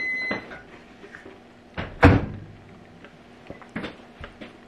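Handling noises: a sharp knock about two seconds in and a few faint clicks, a spoon and a plastic yogurt cup being handled. An electronic beep cuts off in the first half second.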